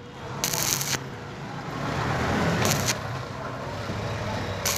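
Stick-welding arc burning on galvanized square steel tube: the electrode's steady crackling sizzle, with short louder bursts of hiss about half a second in and a little before three seconds.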